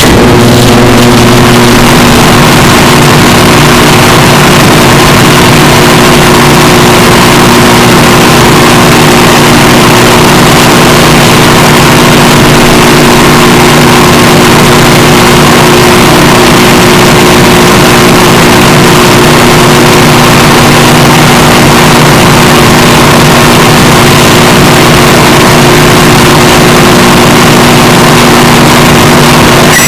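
Microwave oven running through a heating cycle: a loud, steady electrical hum under the even whir of its fan, unchanging throughout.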